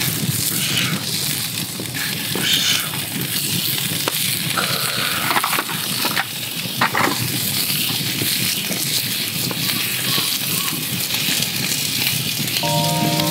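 Wood campfire crackling, with aluminium foil crinkling as a foil-wrapped packet is handled and set into the flames. Background music comes in near the end.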